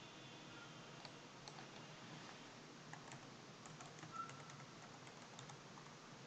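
Near silence with faint, scattered clicks of a computer keyboard, one slightly louder about four seconds in.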